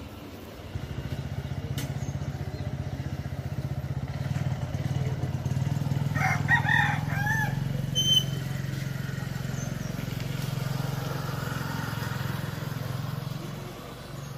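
Motorcycle engine running close by, a steady low hum that comes in about a second in and drops away near the end. About halfway through, a rooster crows once.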